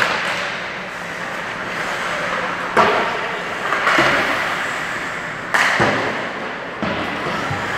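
Ice hockey play: skate blades scraping and hissing on the ice, with sharp knocks of sticks, puck and boards. Three louder knocks stand out, the first about three seconds in.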